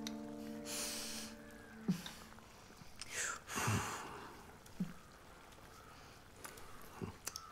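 Piano music dies away in the first two seconds. Then come quiet kitchen sounds of cooking at a stove: a few soft knocks of a utensil against cookware and some breathy sounds.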